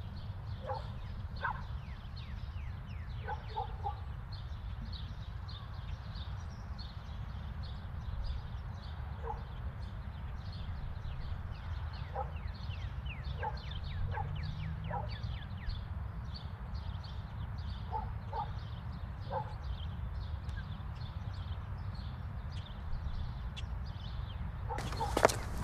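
Outdoor ambience: small birds chirping quick falling notes throughout, a dog barking now and then in short bursts of two or three, over a steady low rumble. About a second before the end, hard footsteps on cobbles begin.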